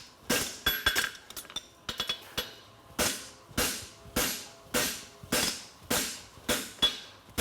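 Forging hammer striking a hot steel horseshoe bar on an anvil, each blow ringing briefly. Lighter, irregular taps come first, then steady blows about every 0.6 seconds.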